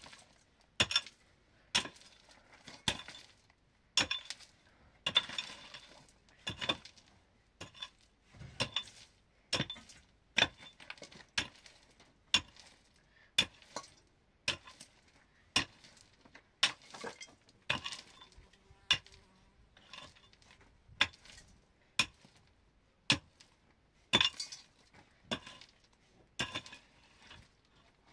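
Irregular sharp metallic clinks, about one a second, of a mason's tool striking bricks during bricklaying.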